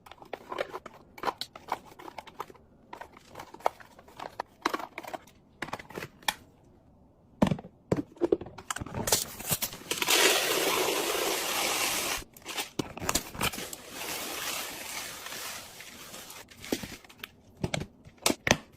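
Food packaging and plastic containers being handled: crinkling wrappers, with clicks and taps of lids and items being set down. A steady rushing noise runs for about two seconds, some ten seconds in.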